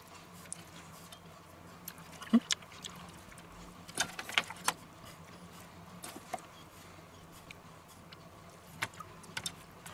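Scattered light clicks and taps of thin apple slices being picked out of a stainless steel bowl and laid by hand onto pizza dough, over a faint steady low hum.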